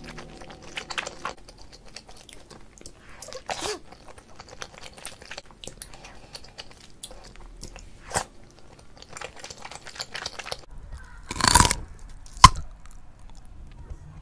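Close-up ASMR chewing of soft steamed momo dumplings dipped in sauce: wet mouth smacks and small clicks. A loud rush of noise comes about eleven and a half seconds in, and a sharp click about a second later is the loudest sound.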